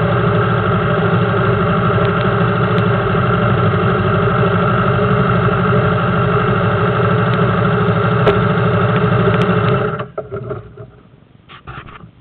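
Suzuki GSX750F motorcycle's inline-four engine idling steadily, then switched off about ten seconds in, the sound cutting off suddenly and leaving a few faint clicks.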